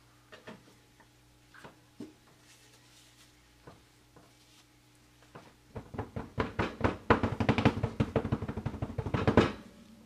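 Loaf soap mold full of freshly poured soap batter knocked rapidly against a countertop, a fast run of many knocks a second that starts about six seconds in, lasts some three and a half seconds and stops sharply, after a few scattered light clicks. This tapping settles the batter and knocks out air bubbles.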